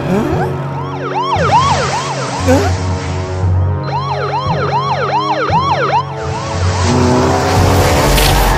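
Cartoon police car sirens in a quick rising-and-falling yelp, about three sweeps a second, in two stretches over action background music. In the last couple of seconds a loud steady rushing noise takes over.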